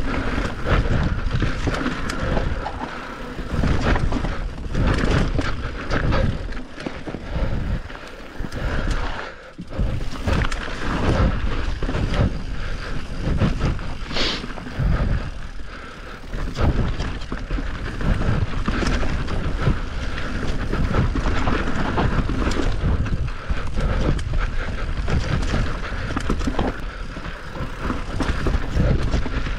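Onboard sound of an enduro bike being ridden over a rough trail: wind buffeting the microphone and the bike rattling and rumbling over the ground, rising and falling in loudness. There is a brief high squeal about fourteen seconds in.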